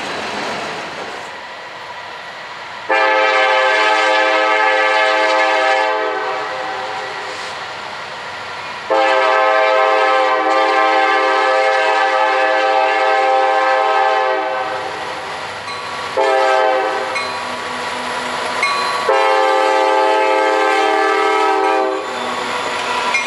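Norfolk Southern diesel locomotive's air horn sounding the grade-crossing pattern as the train approaches: two long blasts, a short one, then a final long one, with the train rumbling along the rails between blasts and as the locomotives pass near the end.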